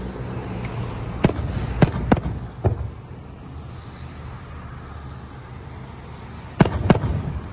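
Aerial firework shells bursting with sharp bangs: four in quick succession in the first three seconds, then two more close together near the end, over a steady low rumble.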